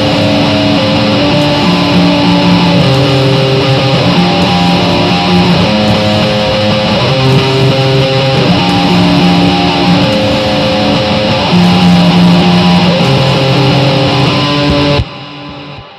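Guitar-led music, loud and dense, with sustained chords changing every second or so. It cuts off abruptly about a second before the end, leaving a fading ring.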